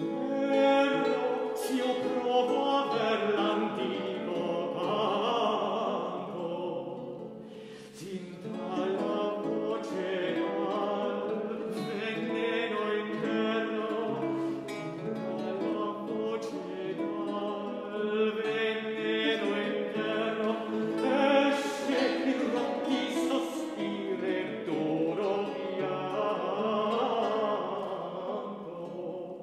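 Tenor singing a Renaissance Italian frottola to lute accompaniment. There is a short break between phrases about eight seconds in, and the phrase dies away at the end.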